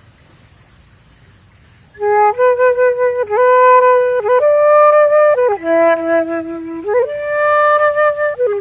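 Flute playing a slow improvised melody of held notes, with short pitch slides between them. It comes in about two seconds in, after a quiet pause.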